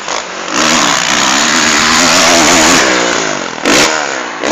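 Motocross bikes racing past on a dirt track, their engines revving up and down in pitch through gear changes and throttle. A brief loud burst stands out about three and a half seconds in.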